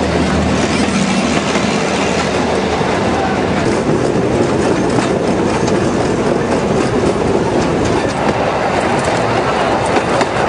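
Narrow-gauge passenger carriages running along the track, heard from aboard: a steady rolling rumble of steel wheels on the rails with the clack of wheels over rail joints.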